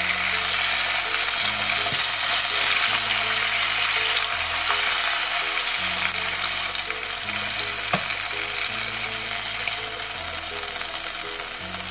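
Chicken wings sizzling as they fry in oil in an electric tajine pot, with a steady hiss while they are turned and lifted out with wooden tongs; a light click about eight seconds in. Soft background music with held low notes plays underneath.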